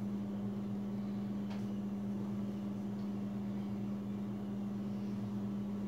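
Steady low electrical hum, such as a running household appliance makes, unchanging throughout, with a couple of faint ticks.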